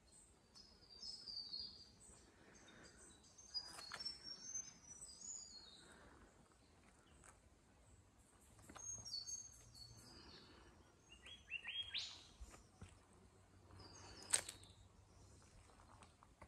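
Faint birds chirping in short, high calls, with a quick run of notes rising in pitch about twelve seconds in. A single sharp click near the end is the loudest sound.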